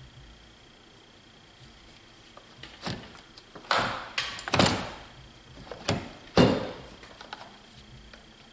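Metal knocks and clunks from a hand tool and battery cable hardware being handled while a truck battery is fitted: a handful of sharp knocks with a short ring in the middle seconds, the loudest about six and a half seconds in.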